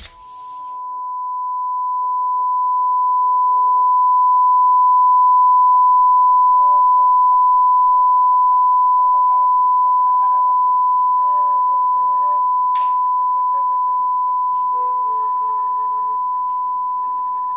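A steady high-pitched sine tone, the film's ringing-in-the-ears effect, swells for about five seconds and then slowly fades, over faint quiet music. There is a brief swish about thirteen seconds in.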